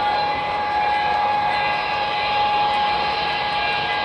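Model freight train of coal hopper cars rolling past on the track: a steady rolling rumble of wheels on rail, with a steady high-pitched whine over it.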